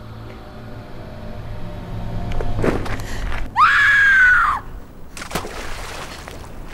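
A young woman screams once in anguish, a single cry about a second long whose pitch rises and then falls.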